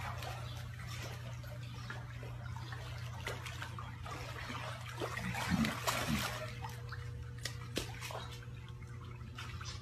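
Pool water splashing and lapping gently as a young lion swims through it, with small splashes now and then, over a steady low hum.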